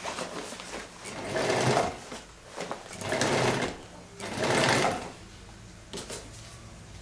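Class 51 industrial sewing machine stitching through thick PVC snow-tube fabric in several short runs of under a second each, as for a backtack at the end of the seam, stopping about five seconds in.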